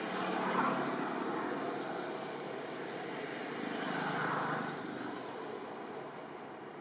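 Distant motor engine noise, a broad rumble that swells about half a second in and again around four seconds, then fades.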